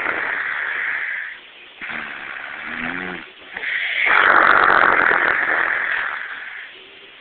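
Elderly woman snoring loudly in her sleep, in long rasping snores. One snore fades out about a second in; after a quieter breath, another long snore begins about three and a half seconds in and lasts about three seconds.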